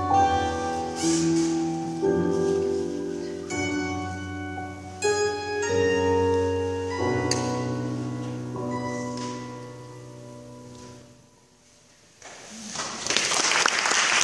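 Cymbalums (concert hammered dulcimers) playing struck notes and chords, ending on a final chord that rings on and fades away about eleven seconds in. After a moment of quiet, an audience starts applauding near the end.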